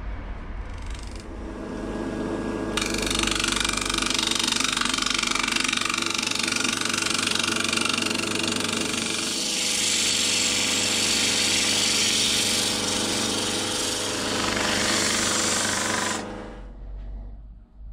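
Wood lathe running with a turning tool cutting into a spinning cherry wood goblet, a rough, steady scraping noise over the lathe's hum, starting about three seconds in as the tool takes off the scorched surface. The cutting and the lathe stop about a second and a half before the end.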